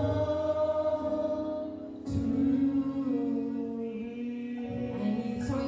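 Slow church hymn singing with long held notes over sustained chords, the notes changing about two seconds in and again near the end.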